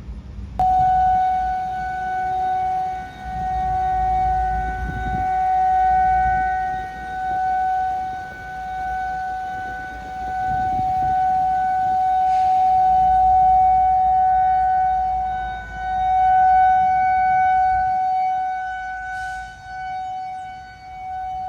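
Federal Signal 2001 outdoor warning siren sounding a steady, single-pitch tornado-warning tone. It starts abruptly about half a second in and swells and fades every few seconds as the rotating siren sweeps around.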